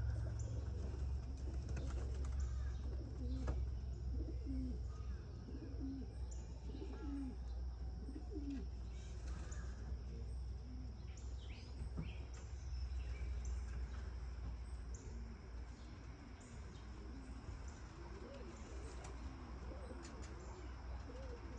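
Domestic pigeons cooing softly and repeatedly, with high small-bird chirps scattered over them and a steady low rumble underneath.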